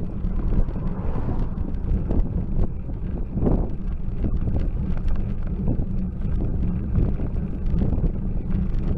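Wind buffeting a bicycle-mounted camera's microphone, with steady road rumble, as the bike climbs. An oncoming car goes past in the first few seconds.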